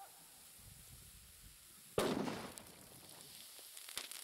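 A 25-gram block of sodium metal exploding on contact with puddle water about two seconds in: one sharp bang that dies away over about half a second. Several small sharp pops and crackles follow over the next two seconds.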